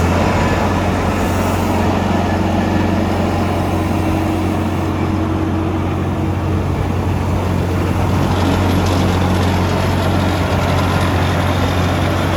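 The 70 kW diesel engine of a PY80 crawler drill rig running steadily at an even speed, a loud, deep, constant hum.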